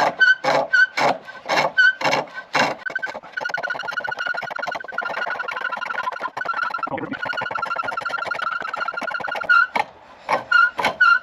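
Homemade framing chisel cutting a chestnut spindle turning on a treadle pole lathe, worked in a rhythm. First a quick series of separate strokes, then about six seconds of continuous fast, even scraping with a steady whistling tone, which stops shortly before the end.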